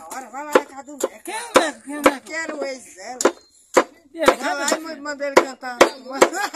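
Machete blade chopping forage cactus (palma) pads against a wooden board: sharp chops about twice a second, with a brief pause near the middle. Repeated short pitched calls sound underneath.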